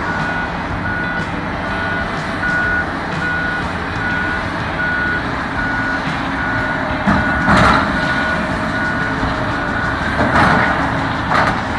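Heavy equipment backup alarm beeping at a steady pace, a little faster than once a second, over diesel machinery running. A few louder noisy bursts come through about halfway in and again near the end.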